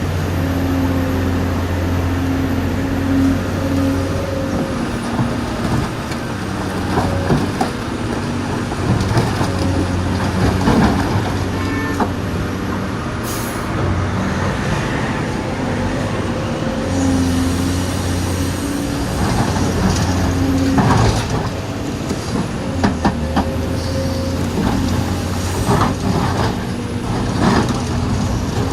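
Diesel engine of a full-size excavator running steadily, its note strengthening and easing every few seconds as the machine works, with scattered knocks and clatters throughout.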